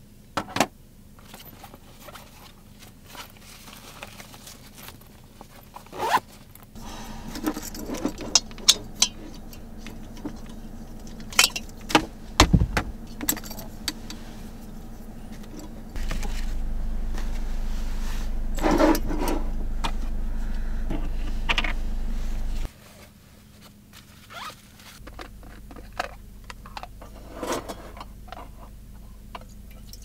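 Camping gear being handled in a small space: rustling of fabric bags with scattered clicks, clinks and knocks of small items being moved and set down. About halfway through, a steady low hum comes in under it for six or seven seconds and stops abruptly.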